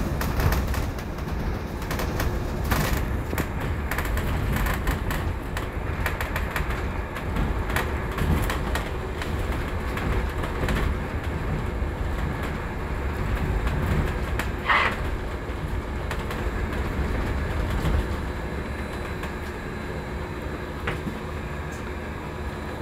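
Cabin ride noise on the upper deck of a Wright StreetDeck Electroliner battery-electric double-decker bus on the move: a steady low rumble of tyres and road, with occasional clicks and rattles from the body and fittings.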